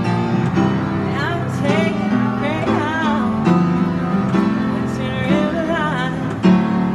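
A woman singing a melody with strong vibrato over held keyboard chords.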